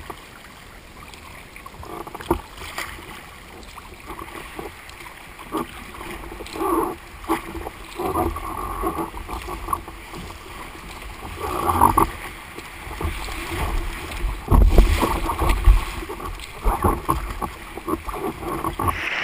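Choppy sea water sloshing and splashing around a sea kayak moving through swell, with a low rumble underneath and irregular louder splashes, the loudest about fifteen seconds in.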